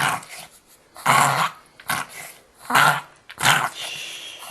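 A chihuahua reverse sneezing: a run of about five loud, rasping, honking snorts drawn in through the nose, roughly one every three-quarters of a second.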